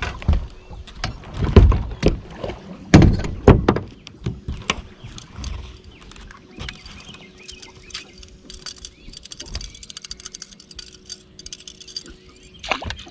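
Loud knocks and thumps on a bass boat's deck in the first few seconds, then a fast, faint ticking while a lure is cast and reeled in, with one more sharp knock near the end.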